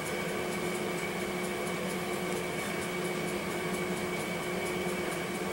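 Steady mechanical room hum and hiss with a constant high whine, like a fan or appliance running, unchanging throughout.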